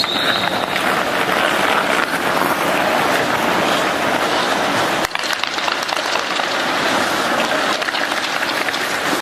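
Ice rink ambience during hockey practice: a dense wash of skates scraping and sticks and pucks clattering on the ice, with a brief high whistle-like tone at the very start.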